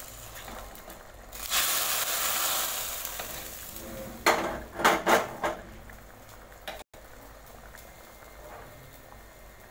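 Hot sesame-oil tempering of fried shallots and curry leaves sizzling in a pot of dry fish curry. A few sharp metal knocks of pan and spoon come about four to five seconds in, then a quieter steady hiss as the curry cooks.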